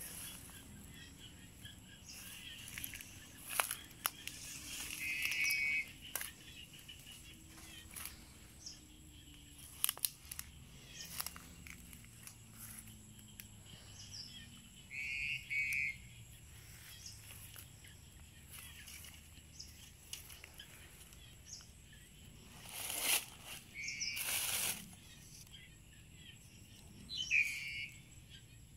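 Outdoor garden ambience: a bird gives the same short patterned call four times, about ten seconds apart, over a steady high insect drone. A few sharp clicks fall throughout, and two louder rustling swishes come late on.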